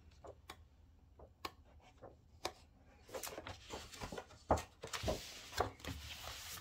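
Paper pages of a coloring magazine being turned and handled: a few soft taps and rustles at first, then a busier stretch of page rustling with several sharp little ticks in the second half.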